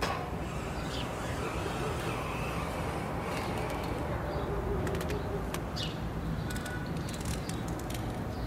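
Steady outdoor background noise with a low hum, a few faint short chirps and scattered light clicks.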